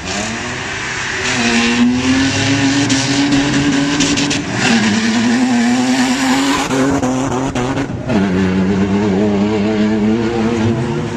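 Off-road race vehicle's engine accelerating hard from a launch. It climbs in pitch through each gear and drops back at shifts about four and a half and eight seconds in, over a loud rushing noise.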